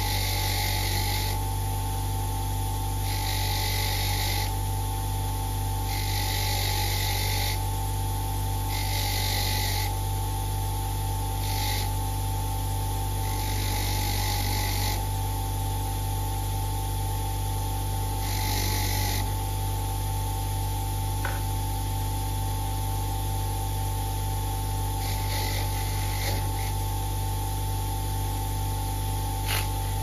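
Bench grinder motor running steadily with a wire wheel, with repeated scratchy bursts, each a second or two long, as a small metal part is pressed against the spinning wire brush to clean it. The bursts come about every two to three seconds at first, then thin out after about twenty seconds.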